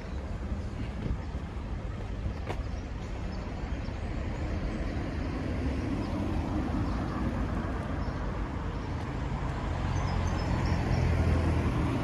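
Town street traffic: cars running along the road as a steady rumble, growing louder near the end as vehicles come closer.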